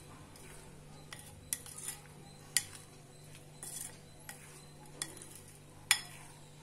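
Silicone spatula stirring chopped pineapple, apple and banana in a glass bowl: a soft, wet stirring sound with irregular sharp clinks as the spatula knocks the glass. The loudest clink comes about six seconds in.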